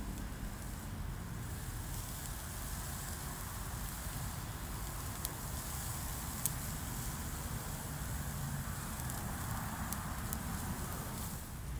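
Sausages sizzling and crackling over hot coals on a small charcoal grill, with a steady low rumble underneath and a few sharp clicks about midway and near the end.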